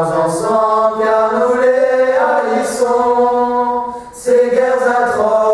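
Unaccompanied voice singing slow, chant-like phrases of long held notes. The pitch steps up about two seconds in, and the line breaks briefly near four seconds before the next phrase begins.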